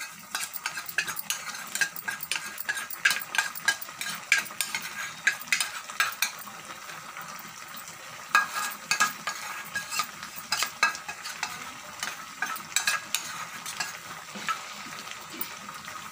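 Pot of thick toor dal with raw mango simmering on the stove just after the hot tempering was poured in: irregular sputtering pops and crackles over a steady sizzle.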